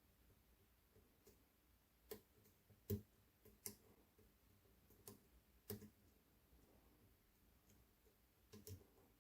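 Faint, irregular clicks of a lock pick tapping and setting the pins inside an Ikon SK6 Radienprofil Extra lock under tension: about six clicks, the loudest about three seconds in.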